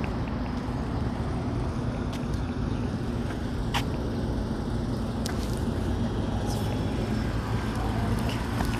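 Street traffic: a motor vehicle's engine running with a steady low hum, with a few light clicks over it.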